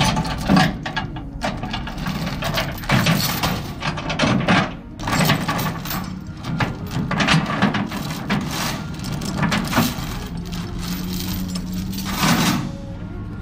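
Steel load-securement chain clinking and clanking as it is handled and dragged across a stack of steel plates, in many irregular metallic strikes.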